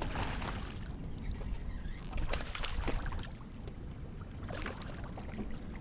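A hooked tripletail splashing at the water's surface beside a small boat, with scattered short splashes over water lapping against the hull.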